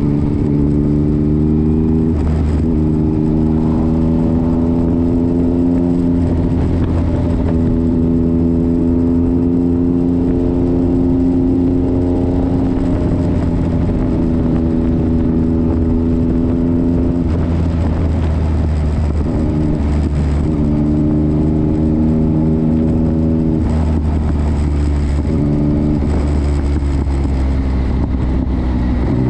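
Motorcycle engine running at road speed, its note climbing slowly and dropping back every few seconds with throttle and gear changes, over heavy wind rumble on the microphone.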